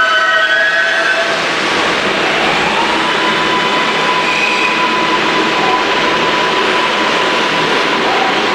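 R142A subway train running through a station: a loud, steady rumble of the cars going past. Several high whining tones fade out in the first second or so, and a single steady whine sets in about two and a half seconds in.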